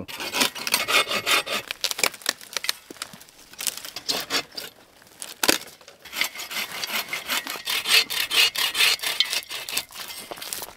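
Hand saw cutting firewood in quick back-and-forth strokes, in two bouts with a pause between them. A single sharp knock falls in the pause.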